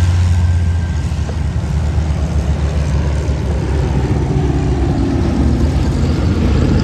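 Piston-engined vintage propeller aircraft running loud and steady, a deep engine rumble with a faint rising drone midway as the aircraft passes.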